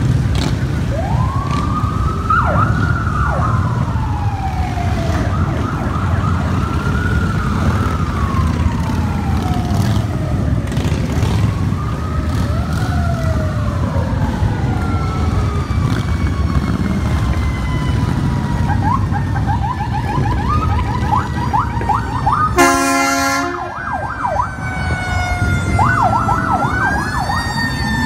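Several emergency-vehicle sirens wailing, overlapping and rising and falling, then switching to fast yelps, with one loud horn blast about a second long about three-quarters of the way through. Underneath runs a steady low rumble of passing motorcycle and vehicle engines.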